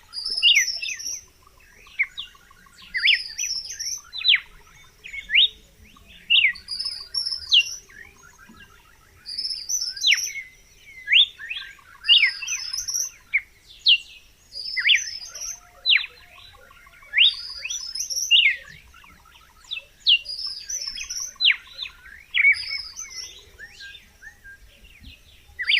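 Red-cowled cardinal singing: short phrases of clear, quickly falling whistled notes, repeated every second or two with brief pauses between them.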